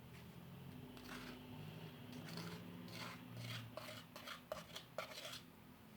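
Flour being poured and shaken into a container: a soft rustle, then a run of light taps and clicks in the second half as it is knocked out.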